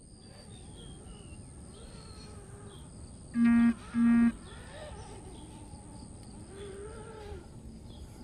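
A horn-like beep sounds twice, about half a second apart: two short, loud blasts on one steady pitch, over a background of faint bird chirps.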